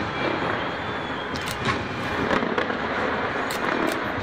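Fireworks going off over a steady background din, with sharp cracks and bangs in a cluster about a second and a half in and again near the end.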